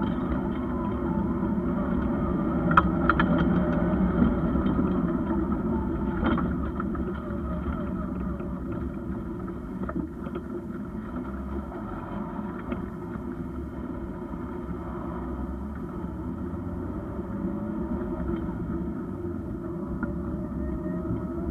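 Inside the cabin of a Škoda Felicia rally car on the move: engine running with revs rising and falling, with a few sharp knocks in the first ten seconds. Louder for the first few seconds, then steadier, with the engine note slowly rising near the end.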